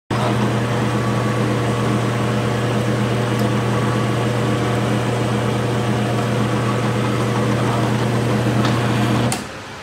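Drill motor running with a steady hum while a twist drill bores a hole in a metal bracket. The motor cuts off about nine seconds in.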